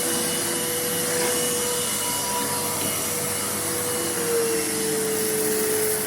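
Vacuum cleaner running steadily, its motor whine dropping slightly in pitch about four seconds in.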